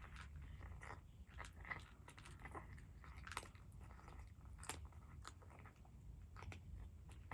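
A cat chewing, faint crisp crunches coming irregularly, a few louder than the rest, over a low steady rumble.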